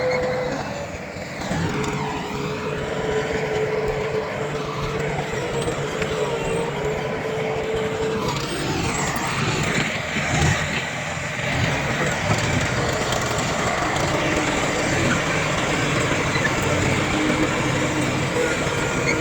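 Diesel engines of a bulldozer and dump trucks running steadily. A wavering whine sits over the engine noise for about the first eight seconds.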